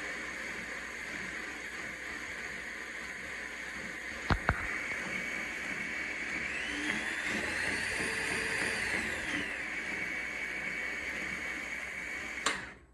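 Burr King 960-272 2x72 variable-speed belt grinder running with a steady high whine. Two sharp clicks come about four seconds in. Midway the whine rises in pitch and falls back over a few seconds. Near the end there is a click and the running sound cuts off.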